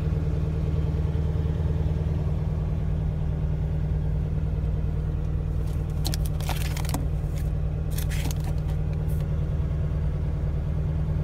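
Ford Shelby GT350R's 5.2-litre flat-plane-crank V8 idling steadily, heard from inside the cabin. A few brief rustling scrapes come about six and eight seconds in.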